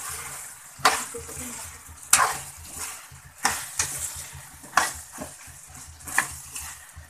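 A spatula stirring minced meat, cauliflower and potato frying dry in a metal kadai: irregular scrapes and knocks against the pan, about one every second, over a steady sizzle.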